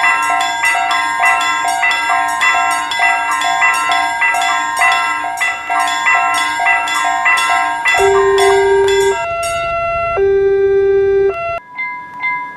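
Japanese railroad-crossing warning bell ringing its repeated "kan-kan", about two strikes a second. About eight seconds in it breaks into long steady tones, including a low hum-like tone heard twice, before quieter ringing strikes return near the end.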